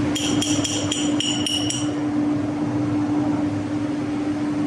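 A quick series of about seven ringing metal-on-metal taps, roughly four a second, in the first two seconds, from work on the flange being centered and tightened in the lathe chuck. A steady machinery hum runs underneath.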